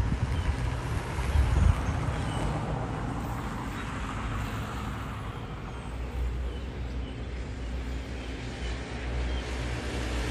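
Steady low rumble of road traffic, with a few faint short high chirps.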